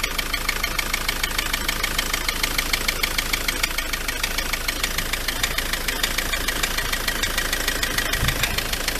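Ford Transit Mk7 2.4 diesel engine idling with a steady, even knock. The owner suspects a failing dual-mass flywheel.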